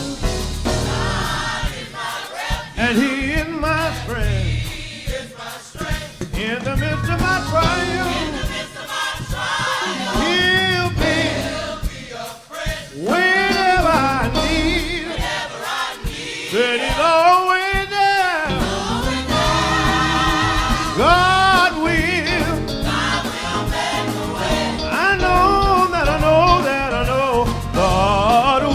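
Gospel music: a choir with vocal lines sung with vibrato over band accompaniment.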